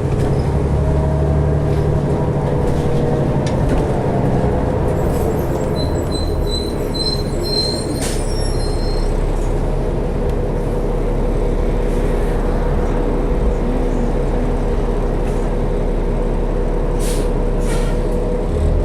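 2012 New Flyer D60LFR articulated diesel bus under way, heard from inside the cabin: steady engine and road rumble, with a short run of high squeaks about six to nine seconds in and a couple of sharp knocks.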